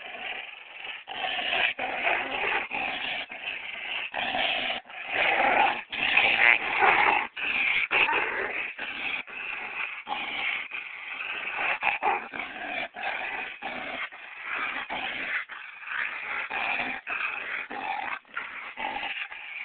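A dog vocalizing in a near-continuous stream of sound broken by many short gaps.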